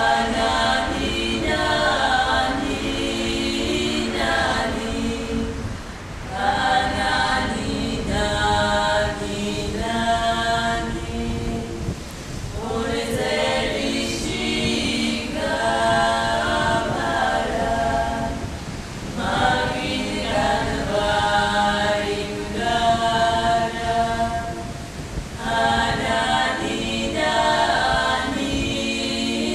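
Female vocal quartet singing a cappella in several-part harmony over a low held drone, in phrases of about five to six seconds broken by short pauses for breath.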